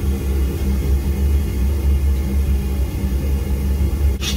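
Gas forge burner running with a steady low rumble. Near the end, a sudden sizzling hiss starts as the red-hot blade is plunged into the quench oil to harden it.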